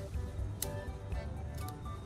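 Background music with a steady bass beat and melody, with a few sharp clicks, the loudest about half a second in.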